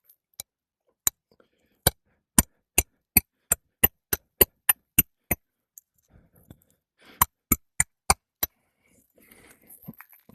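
Hammer driving roofing nails into asphalt shingles: a few single blows, then a quick run of about a dozen strikes at three to four a second, and four more strikes near the end.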